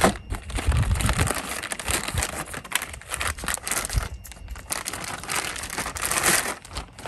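Plastic packaging crinkling and rustling irregularly as bagged suspension hardware is handled.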